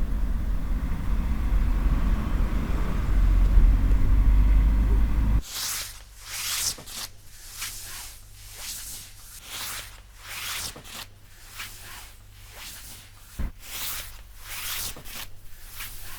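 A loud low rumble, heavy in the bass, that cuts off abruptly about five seconds in. Then cloth is rubbed and rustled in short swishing strokes, roughly one a second.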